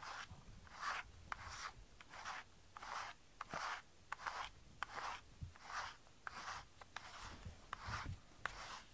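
A hand stroking a cat's fur in quick repeated strokes, a soft swish of rubbing at about two strokes a second, close to the microphone.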